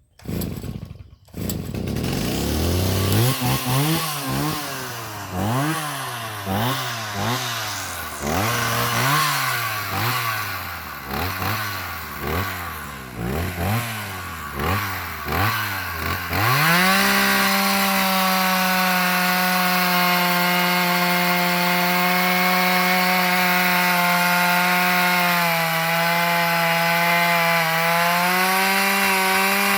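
Two-stroke chainsaw starting, then revved up and down roughly once a second for about fifteen seconds; the saw has been playing up. It is then held steadily at full throttle, its pitch sagging slightly under load for a few seconds near the end.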